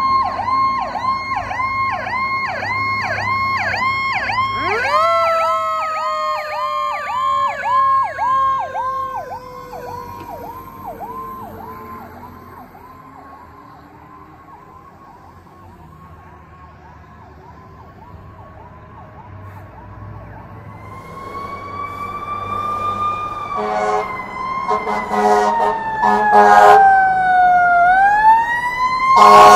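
Fire engine sirens: a fast yelp with a second siren that winds up about five seconds in and slowly falls, both fading away. Later a wailing siren rises and falls as another apparatus draws nearer, with several horn blasts near the end, the last one loud.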